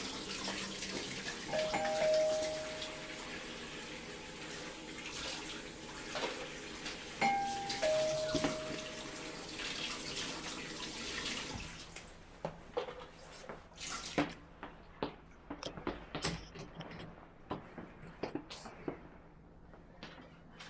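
Two-tone ding-dong doorbell chime rung twice, about six seconds apart, each time a short higher note dropping to a lower one that rings on. A steady rushing noise lies under the chimes and stops about halfway through, leaving scattered light taps and knocks.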